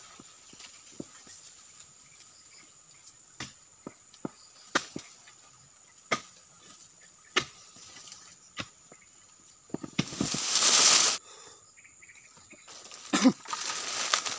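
Long-handled steel chisel (dodos) chopping into the base of an oil palm, sharp single strikes about once a second, over a steady high drone of insects. About ten seconds in a loud rush of crashing fronds as the palm goes over, then a heavy thump and more rustling near the end.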